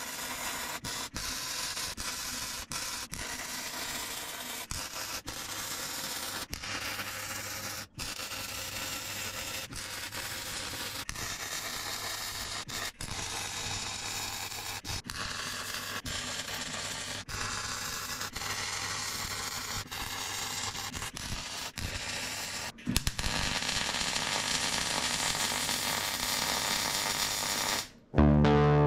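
MIG welding on a steel box-section door frame: a steady, crackling hiss from the arc with brief breaks between welds, louder for the last few seconds. It cuts off near the end, where electric guitar music starts.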